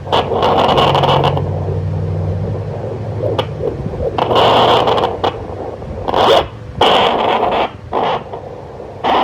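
Fetal Doppler monitor's speaker giving irregular bursts of whooshing, scraping noise as the probe is moved over a pregnant belly in search of the fetal heartbeats, with a low hum under the first few seconds.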